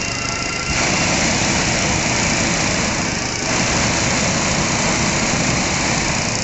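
Hot-air balloon propane burner firing: a loud, steady rushing noise that starts abruptly about a second in, over the running engine of an inflator fan.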